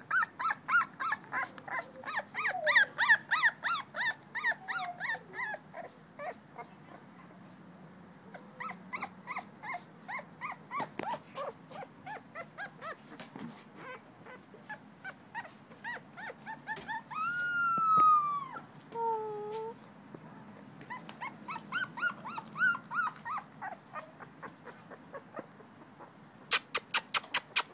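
A two-week-old American Pit Bull Terrier puppy whimpering in runs of short, high squeaks, with one long rising-and-falling cry about two-thirds of the way through that is the loudest sound. Near the end there is a quick run of sharp clicks.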